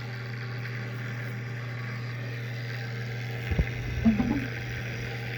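RTX 2080 Ti Founders Edition graphics card fans running with a steady low drone, the faulty fan noise the card is known for. A few short louder knocks come about three and a half to four and a half seconds in.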